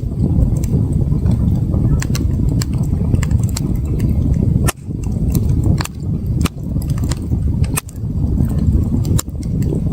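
Campfire crackling, with sharp pops and snaps several times a second over a steady low rumble.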